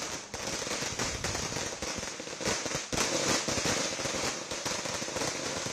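Firecrackers bursting in a rapid, continuous crackle of many small bangs.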